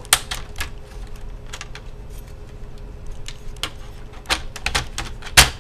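Irregular sharp plastic clicks and snaps from a laptop's screen bezel being pressed and clipped back onto the display lid, with two loud snaps near the end.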